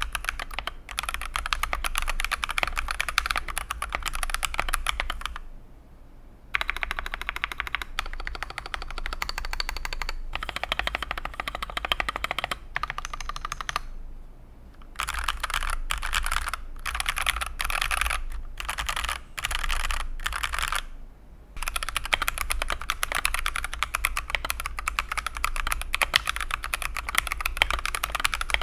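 Fast typing on a mechanical keyboard fitted with Akko switches: a dense clatter of keystrokes and bottoming-out clicks. The typing breaks off briefly about six and fourteen seconds in, and stops and starts several times between about fifteen and twenty-one seconds.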